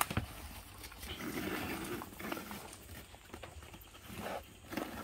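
Banana-leaf parcel being handled and tied with string: a couple of sharp knocks at the start, then leaf rustling and more short knocks and scrapes.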